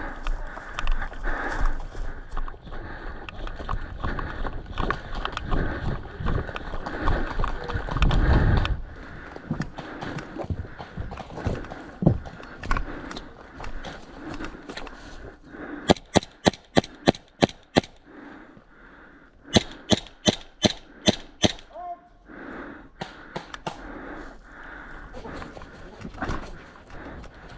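Loud rustling and rumbling noise on the microphone for the first several seconds. Then two quick strings of airsoft rifle shots, about eight or nine sharp cracks each at roughly four a second, the second string starting about a second after the first ends.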